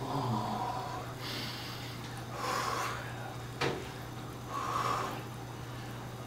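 A man breathing hard in ice-cold water: three or four loud, short breaths through nose and mouth, and a single sharp click about three and a half seconds in, over a steady low hum.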